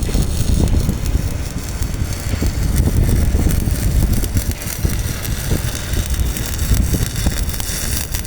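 Stick arc welding crackling irregularly under heavy wind rumble on the microphone.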